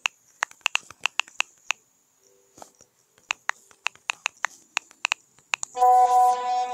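Rapid clicks of a phone's on-screen keyboard as a message is typed, several per second with a short pause in the middle. Near the end a loud steady buzzing tone sets in and holds for over a second, as a new chat message arrives.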